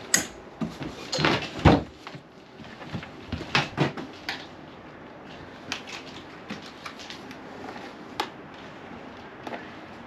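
Wall-mounted fold-down bench being worked by its strap: a run of clicks and knocks with one heavy thump about a second and a half in and another cluster of knocks near four seconds, then only light ticks.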